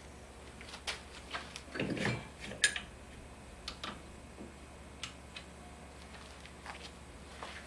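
Irregular metallic clicks and clinks of hand tools and parts being handled, with a louder clatter about two seconds in.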